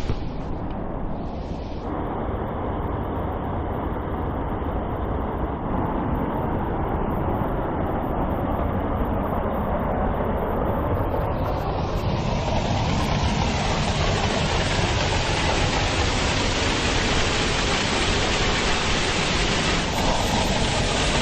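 Steady roar of rushing water from a waterfall, a dense, even rush that grows brighter about halfway through.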